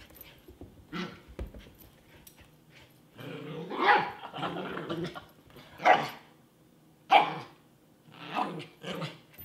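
Puppy barking and growling in rough play: a growl of about two seconds starting about three seconds in, then sharp single barks and a few more near the end.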